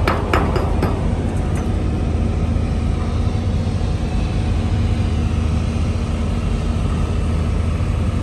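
Self-shielded flux-cored (Innershield) arc welding: a steady, even arc hiss over a constant low hum from the welding machine, with a few sharp clicks in the first second.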